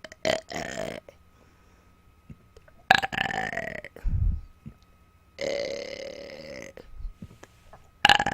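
A woman burping on command: four separate burps a couple of seconds apart, the one about halfway in the longest, with a short low thud after the second. These are voluntary burps of swallowed air, made without eating or drinking.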